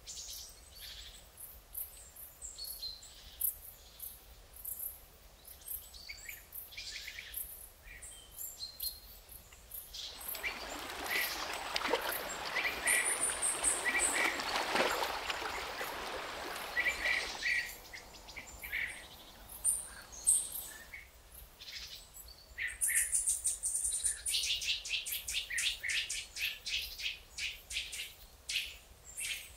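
Wild birds chirping and calling, many short high notes, with a fast run of high repeated chirps near the end. A broad rushing noise swells and fades for about seven seconds in the middle.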